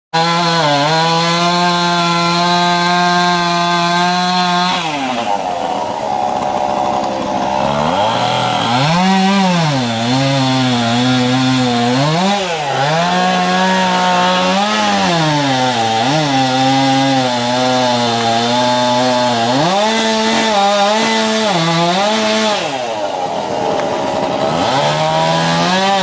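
Gas chainsaw cutting into a large maple. It is held at high revs for the first few seconds, then drops back and revs up and down again and again as it bogs in the cut and frees, easing off once more near the end.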